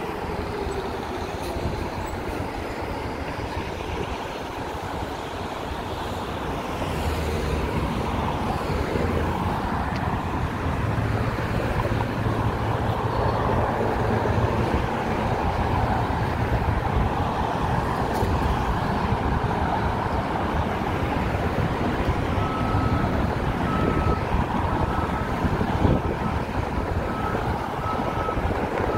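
Road traffic on a city street: cars and heavier vehicles driving past, the engine and tyre noise growing louder about seven seconds in. In the last few seconds a faint electronic beep repeats about one and a half times a second.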